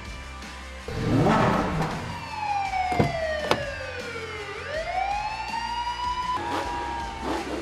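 Police-car siren sound, a slow wail that falls for about two seconds and then rises again, with a shorter tone after it. A short rough burst comes just before it, and two sharp clicks fall during the falling part.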